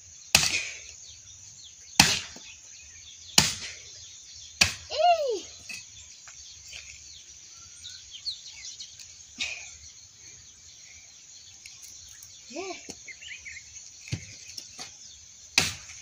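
Steel axe chopping into a hard, unseasoned log on the ground: four sharp strikes about a second and a half apart, then a pause, then a few more scattered strikes near the end. Crickets and birds chirp faintly throughout.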